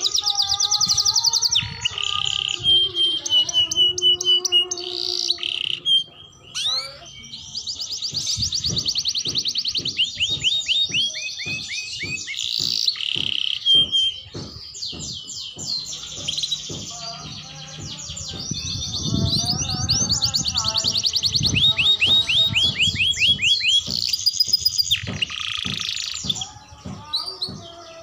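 Young domestic canary practising its song: long runs of rapid trills and rolls mixed with short whistled notes, with brief pauses between phrases.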